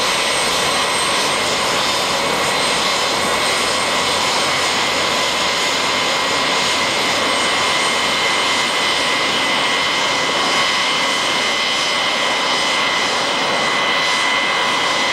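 Boeing 707 (CC-137) Pratt & Whitney JT3D turbofan engines running at taxi power: a loud, steady jet rush with a high, constant whine on top.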